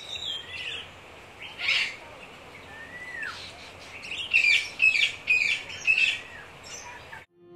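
Birds singing outdoors: scattered chirps and a falling whistle, then a run of loud, quick chirps about four seconds in. The sound cuts off suddenly near the end.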